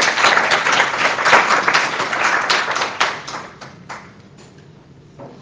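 Audience applauding, the clapping dying away about three to four seconds in.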